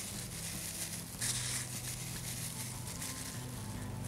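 Quiet room tone: a steady low electrical hum with faint, soft handling noises and a brief faint hiss about a second in.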